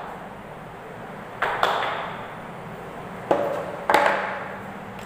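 Four sharp knocks, unevenly spaced, each with a short room echo: two close together about one and a half seconds in, and two more between three and four seconds.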